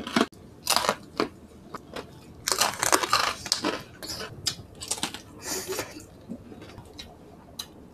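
Close-miked biting and chewing of crispy roast pork and roast chicken, the crackling skin crunching in irregular clusters that thin out near the end.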